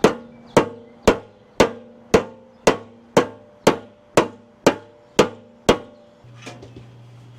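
Hammer beating out a Splendide clothes dryer's fan cover: twelve even blows, about two a second, each leaving a short metallic ring. It is dented out so the blower fan stops hitting it, then the blows stop and a few light clicks follow.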